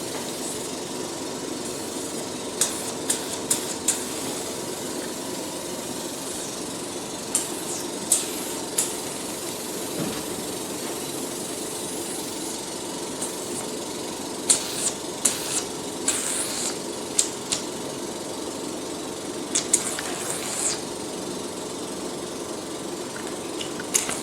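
Vacuum pump of a hydrodermabrasion facial machine running steadily with a hum and hiss, with short sharp hissing bursts now and then from the suction-and-water handpiece.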